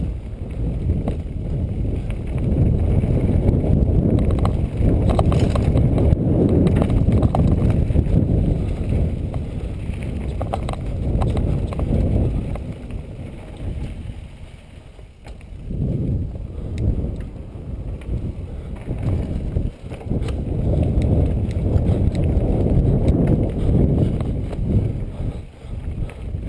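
Trek Rumblefish Elite full-suspension mountain bike speeding down a dirt singletrack: tyres rolling and the bike rattling over the rough trail, with heavy wind rumble on the microphone. The rumble eases about halfway through, then builds again as the speed picks up.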